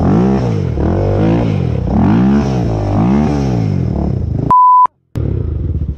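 ATV engine revving up and down in about four swells as the quad climbs over rocks. About four and a half seconds in, a brief steady censor bleep cuts in, followed by a moment of silence, then the engine running again more quietly.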